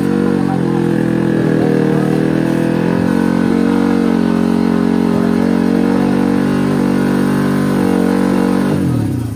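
Drag-racing motorcycle engine held at steady revs on the start line. Near the end the revs drop sharply and then climb again.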